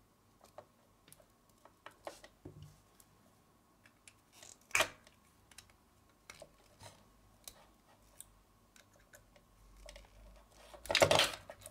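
Needle-nose pliers working the metal terminal tab of a small cylindrical battery cell loose: sparse small clicks and scrapes, with a sharper click about five seconds in and a brief louder noise near the end.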